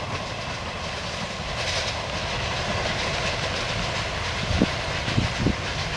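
Freight train wagons rolling past at the tail of a long train: a steady rumble and clatter of wheels over the rail joints, with a few low knocks near the end.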